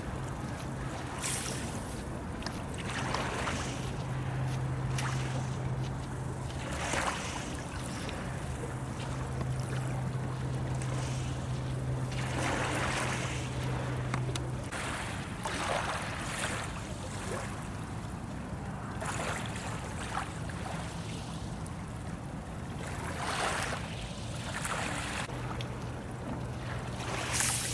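Lakeside ambience: lake water lapping in repeated soft swishing surges over a steady low hum, which drops out about halfway through and comes back near the end.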